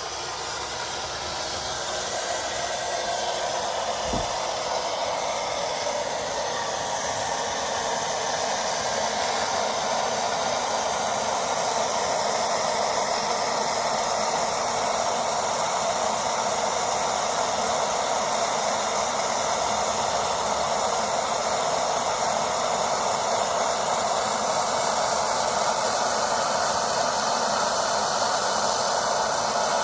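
Gas soldering torch burning with a steady hissing rush of flame while a brass piece is heated for soldering, with a single low bump about four seconds in.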